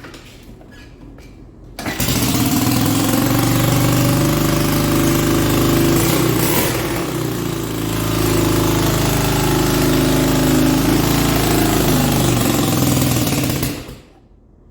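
Freshly rebuilt four-wheeler (ATV) engine catching suddenly about two seconds in, running for about twelve seconds with a brief sag in the middle, then dying out. It runs only on choke, a sign of a lean fuel mixture that they put down to a misadjusted carburetor.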